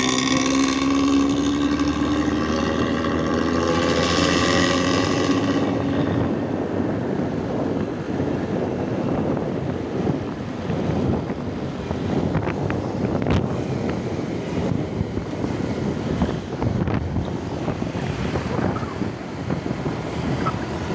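Bus engine and exhaust with a snoring ('ngorok') drone, rising slowly in pitch as the bus accelerates for the first six seconds or so. It then sinks under wind buffeting the microphone and steady road noise from riding alongside.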